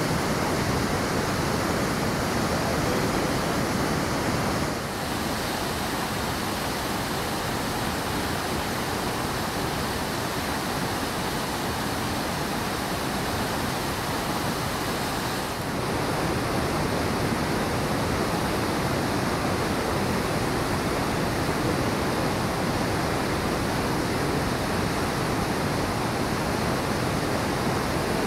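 Steady rushing of a fast-flowing salmon creek's rapids, an even wash of water noise. It drops slightly in level about five seconds in and comes back up about sixteen seconds in.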